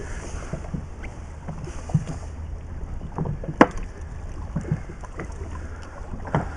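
Wind buffeting the microphone aboard a drifting inflatable fishing boat, a steady low rumble, with scattered knocks as a red snapper is hauled aboard by hand; the sharpest knock comes about three and a half seconds in.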